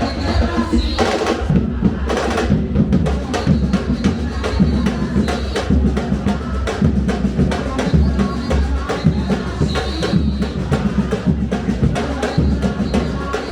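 Samba-reggae percussion band playing live: deep bass drums under a dense, rapid pattern of drum strokes.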